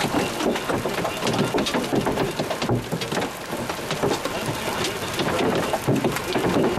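Hailstones pelting gravel ground during a severe hailstorm: a dense, steady clatter of countless small sharp impacts.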